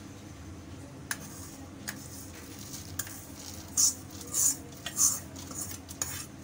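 Steel ladle clinking and scraping against a steel pot of milk as dry fruit is stirred in. A few light clicks come first, then several louder scrapes in the second half, over a steady low hum.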